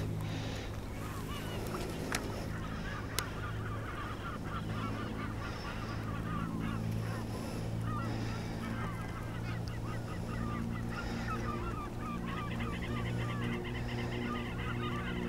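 A flock of flamingos calling, a continuous chatter of goose-like honks that grows busier and higher near the end, over a steady low hum. Two sharp clicks come a few seconds in.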